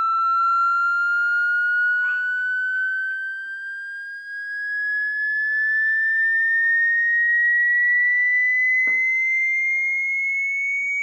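Electronic test tone, a pure whistle-like pitch sliding slowly and steadily upward the whole time, played back as a sound for a dog to react to; it dips briefly in loudness about four seconds in.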